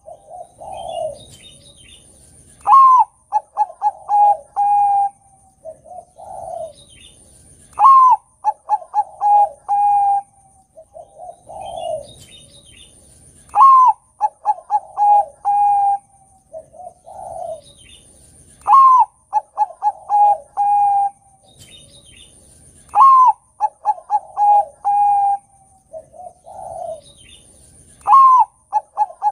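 A Bangkok-type perkutut (zebra dove) is singing its cooing song, about one phrase every five seconds, six in all. Each phrase opens with a softer low note, then a sharp rising-and-falling note, a quick run of short clipped notes, and a long held final note.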